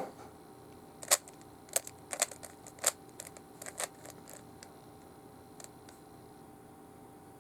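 Plastic Rubik's cube being twisted by hand: a quick, irregular run of about a dozen sharp clicks as the layers turn, starting about a second in and stopping after about four seconds.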